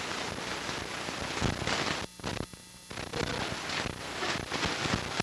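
Crackling static with irregular pops and clicks from a degraded home-video tape soundtrack, cutting out briefly about two seconds in.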